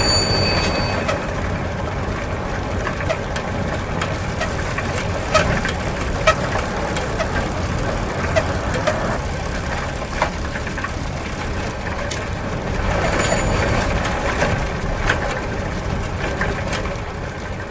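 Bicycle riding along: a steady rumble of the tyres rolling, with scattered clicks and rattles from the drivetrain and frame. A bicycle bell rings at the start and rings faintly again about two-thirds of the way through.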